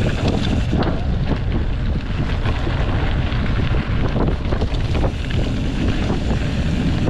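Wind buffeting the microphone on a fast mountain-bike descent, with a steady scatter of short clicks and knocks from the bike and its tyres on the rough trail.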